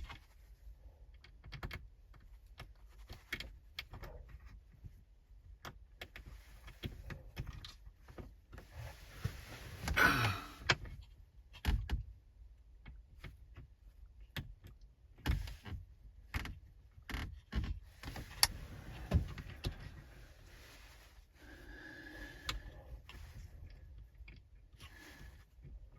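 Scattered small clicks, taps and rattles of small metal parts being handled: an Allen key working the grub screw of a mirror-mount adapter bracket. A longer scraping rub about ten seconds in is the loudest sound.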